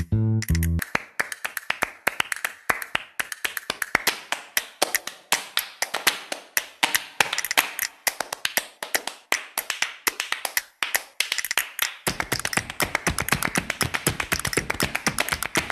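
Flamenco footwork (zapateado): a dancer's shoes striking the stage floor in rapid heel-and-toe taps. The taps build into a fast, nearly continuous roll in the last few seconds.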